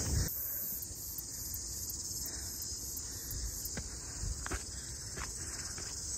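A steady, high-pitched chorus of insects trilling in the scrub, with a few soft footsteps on the dirt track and steps from about halfway through.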